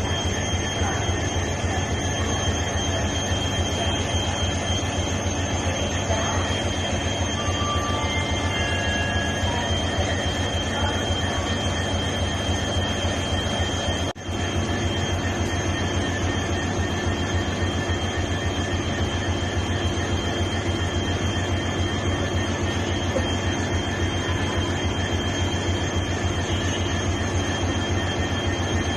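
Bangalore Metro electric train humming steadily: a low hum with thin high-pitched whines held over it. It breaks off for a moment about halfway through.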